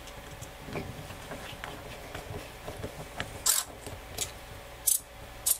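Small screw being driven with a precision screwdriver into a 3D-printed plastic servo mount: faint scraping and ticking as it turns, with a few short, sharp scratchy sounds in the second half.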